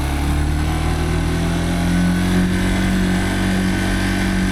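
Dirt bike engine running steadily, its pitch rising slightly partway through.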